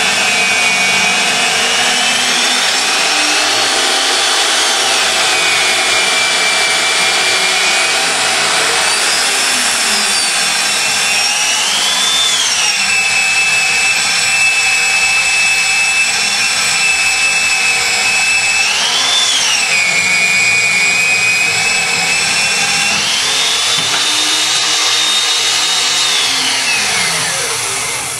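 Nitto magnetic base drill motor running with a steady high whine. The pitch briefly rises and falls back several times as the load changes. Near the end it rises and holds higher, then winds down to a stop.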